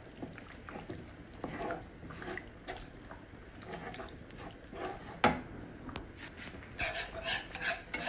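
A spoon stirring a thick milky white sauce in a pan, scraping and clinking against the pan, with one louder knock about five seconds in and busier scraping near the end.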